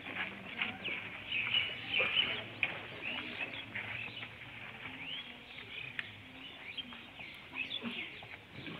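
Birds chirping repeatedly, many short calls close together.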